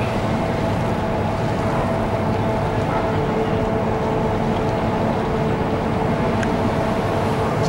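Steady drone of cruise ship machinery, a few constant whining tones over a low rumble.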